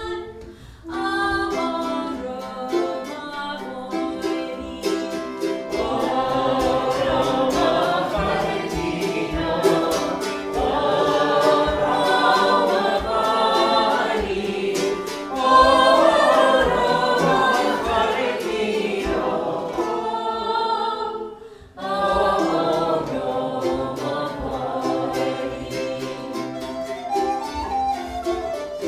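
A woman singing an Irish-language folk song to her own strummed mandolin-family instrument, with short pauses between phrases about half a second in and after about 21 seconds. A small wooden whistle joins in near the end.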